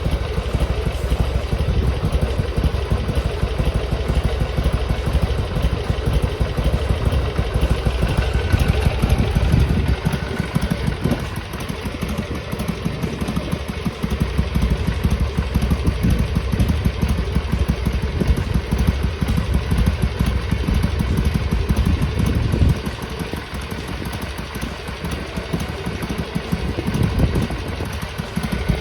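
Harley-Davidson Sportster XL883R's air-cooled 883 cc V-twin idling steadily while warming up. It runs a little quieter for several seconds in the second half. The owner is troubled that it still sneezes (pops back through the intake) even when warm, and suspects his idle adjustment.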